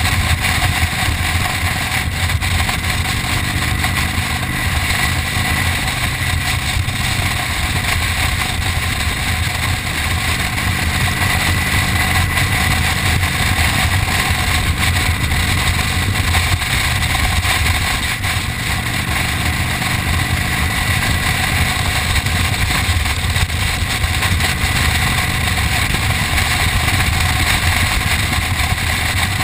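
Motorcycle cruising at a steady speed: a constant engine rumble under loud wind rushing over the microphone, with no shifting or revving.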